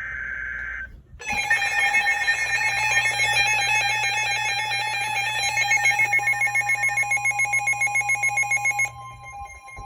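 Emergency Alert System tones: the tail of a data burst in the first second, then after a short gap a harsh, steady multi-tone attention signal that begins pulsing rapidly about six seconds in, with a second steady tone joining shortly after. The alert signal drops away near the end.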